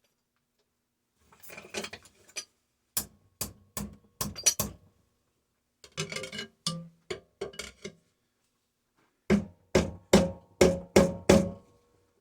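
Hammer blows on the steel of a sealed refrigeration compressor being broken open for its copper coil. They come in three bursts: scattered knocks, a quicker run, then about six hard blows roughly two a second with a metallic ring.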